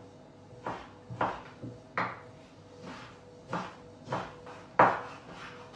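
Kitchen knife dicing cured meat into small cubes on a wooden cutting board: about seven sharp knocks of the blade on the wood at an uneven pace, the loudest nearly five seconds in.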